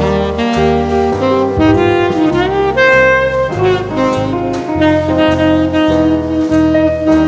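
Background jazz-style music: a lead melody with some sliding notes over bass notes that change about twice a second.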